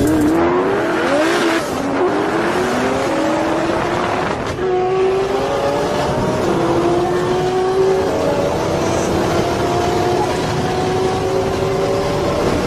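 Tuned twin-turbo Nissan GT-R engine at full-throttle acceleration. Its pitch climbs in sweeps broken by upshifts, and each gear lasts longer than the one before, over a steady rush of wind and road noise.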